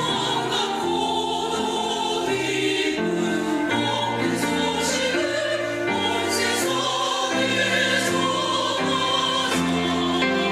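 Church choir singing a hymn in parts, the chords changing every second or so.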